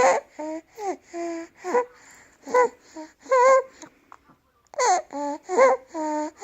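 Seven-week-old infant's noisy breathing: short, squeaky, pitched breath sounds about two or three a second, with a brief pause about four seconds in. This is the stridor of laryngomalacia, soft tissue above the vocal cords partly collapsing into the airway as the baby breathes.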